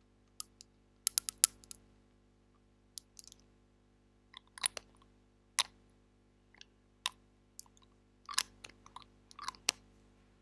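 Small glass dropper bottle being handled close to the microphone: the dropper and its cap click and tap against the bottle's glass neck as the dropper is put back and the cap seated. It is an irregular scatter of sharp clicks, with a quick run of them about a second in.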